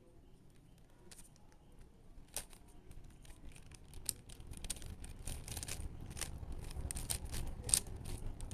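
Plastic puzzle cube being turned by hand: irregular quick clicks and snaps of the layers, coming faster in the second half, over a low handling rumble.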